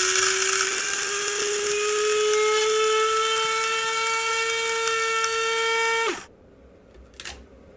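Small electric coffee grinder grinding whole coffee beans with its lid pressed down: a steady motor whine that slowly rises in pitch, then cuts off about six seconds in.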